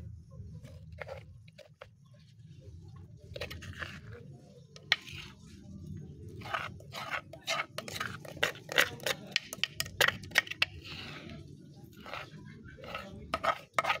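A metal spoon scraping pounded herbal mash out of a wooden mortar onto a stainless steel tray: quick scrapes and clicks, starting about three seconds in and growing busier from about halfway.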